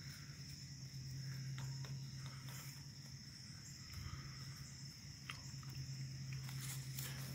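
Hens pecking at ground corn on grass, with scattered faint pecking clicks over a steady low hum.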